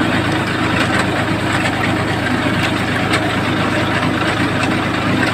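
A 40 hp tractor engine running steadily at a constant pitch, with light clicks and rattles over it.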